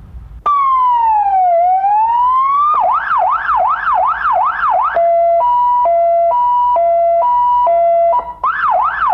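Police car's electronic siren switched on about half a second in and cycled through its tones. It gives a slow wail down and back up, then a fast yelp of about five sweeps, then a two-tone hi-lo alternating between two pitches, and a short burst of yelp again near the end.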